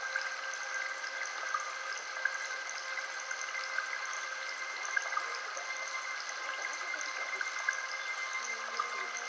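Steady water-like trickling noise with small scattered ticks, with several steady pure tones at different pitches held underneath it.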